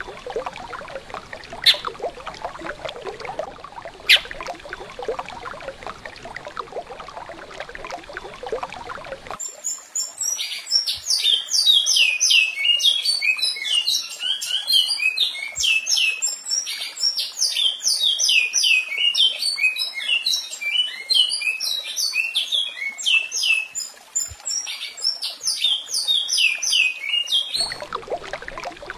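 Recorded songbird song: a fast, continuous run of high, descending whistled notes. It starts suddenly about nine seconds in, after a stretch of steady hiss with a few sharp clicks, and cuts off abruptly near the end.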